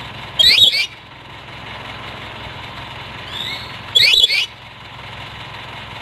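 Black-capped lory calling: two short, loud, harsh shrieks about three and a half seconds apart, each led by a fainter rising call.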